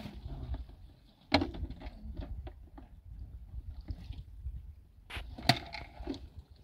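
Water being scooped by cup from a shallow spring and poured into plastic bottles, with scattered clicks and knocks of the plastic containers. Two sharper knocks stand out, one about a second and a half in and another near the end.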